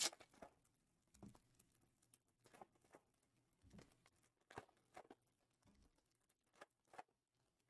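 Near silence with about ten faint, scattered taps and light rustles of foil-wrapped trading card packs being handled.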